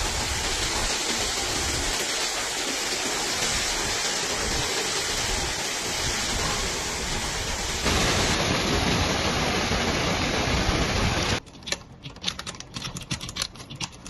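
Steady, dense rushing of torrential rain and running floodwater, its character shifting abruptly about eight seconds in. About three seconds before the end it cuts to a much quieter run of scattered ticks and taps.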